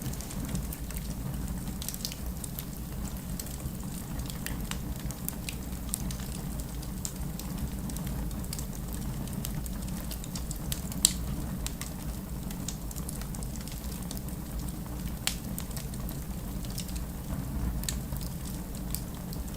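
Wood fire burning in a fireplace: a steady low rumble with scattered crackles and pops, the sharpest pop a little past halfway through.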